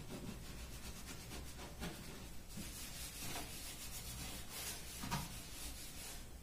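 Hand scrubbing and wiping the inside of a kitchen cabinet, with repeated rubbing strokes. A few light knocks come in among them, the loudest about five seconds in.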